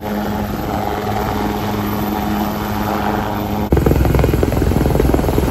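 Indian Coast Guard helicopter hovering with an underslung load: a steady engine whine over rotor noise. About two-thirds of the way in, the sound jumps louder, to rapid, even rotor beats, as a helicopter flies close overhead.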